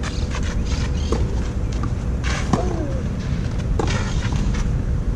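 Tennis rally on a clay court: rackets striking the ball in sharp pops spaced about a second or more apart, over a steady low rumble. A short call with falling pitch comes just after the loudest hit, about halfway through.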